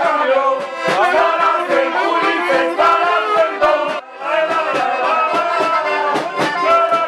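An accordion and a saxophone playing a lively tune together with a steady beat, the music dipping briefly about four seconds in and then carrying on.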